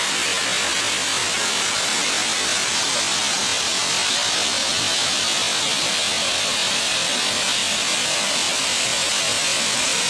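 Small waterfall splashing down rocks into a pool: a steady, even rush of falling water.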